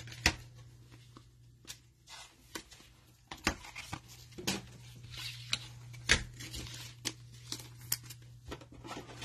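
Trading cards handled with gloved hands: scattered light clicks, taps and short rustles of card stock and plastic, over a faint low steady hum.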